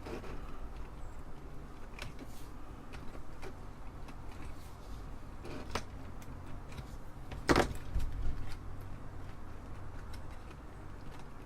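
Apple II Plus keyboard and its separated interface circuit board being handled: scattered light clicks and taps, with one louder knock about two-thirds of the way through. A steady low hum runs underneath.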